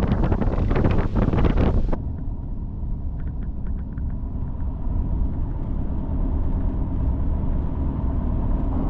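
Loud rushing wind and water noise that cuts off abruptly about two seconds in, followed by the steady low rumble of a running engine.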